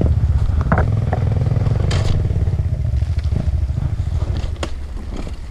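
KTM 250 EXC two-stroke dirt bike engine running at low throttle on a slippery trail, its sound fading off near the end, with a few sharp knocks and rattles from the bike.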